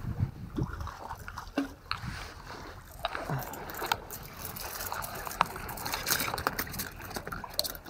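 Water sloshing, with rustling and scattered sharp clicks as gear is handled close by.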